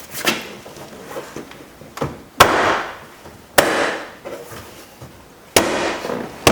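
Sharp slaps on a car's inner door trim panel, hitting it to snap its plastic retaining clips into the door: four loud hits, the first about two and a half seconds in, with a few lighter knocks between.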